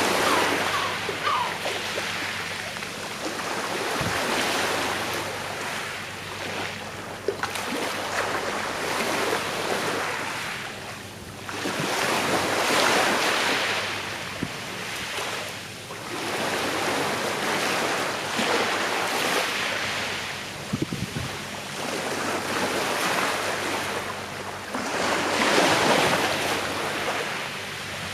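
Calm sea waves washing onto the shore, the surf swelling and falling back about every six seconds.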